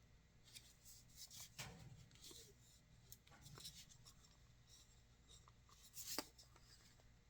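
Faint handling noises: an electric salt and pepper grinder unit being turned over in the hands, with light rubbing and scraping and a few small clicks. A sharper click comes about six seconds in.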